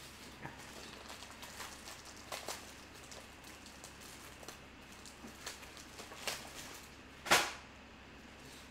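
Scattered faint clicks and taps, with one louder knock about seven seconds in.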